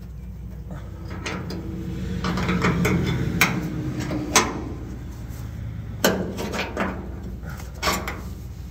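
Hand tools knocking and clinking against the steel underbody of a 1967-69 Camaro, about five sharp metal knocks spread out over a low steady background.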